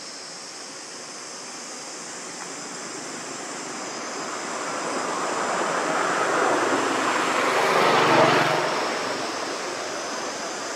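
An engine passing by, swelling slowly to its loudest about eight seconds in and then fading, over a steady high hiss.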